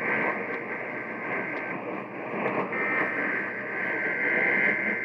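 Off-air radio reception full of static hiss. About two and a half seconds in, a louder, steady buzzing data burst rises over the hiss: the Emergency Alert System's digital header tones announcing a test.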